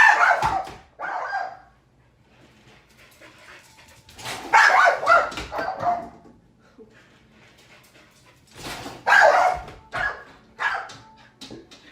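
A dog barking in several loud bouts with pauses between.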